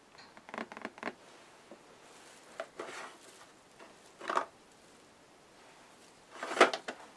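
Handling noises of craft supplies on a worktable: a few short rustles and clatters, with the loudest, a knock, near the end.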